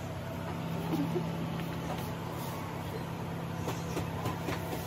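Shop room tone: a steady low hum, with a few faint clicks and rustles.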